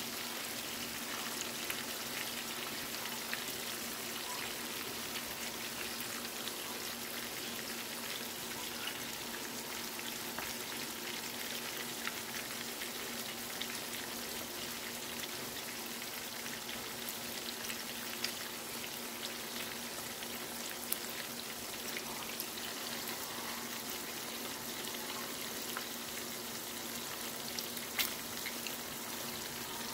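Marinated pork chops frying in butter, garlic and pan juices in a nonstick skillet. There is a steady sizzling hiss, scattered small pops and crackles, and a faint steady hum underneath.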